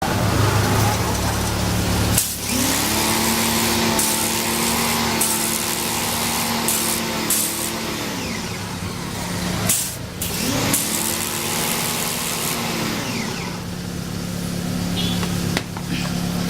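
High-pressure washer jet hissing against the fins of a car radiator, strong enough to flatten them, over the steady hum of the washer's motor. The spray breaks off briefly about two seconds in and again near the ten-second mark.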